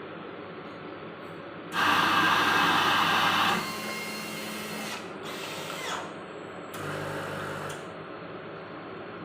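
Contento bean-to-cup coffee machine with fresh-milk system at work: its grinder runs loudly for about two seconds, then quieter hums follow in short spells.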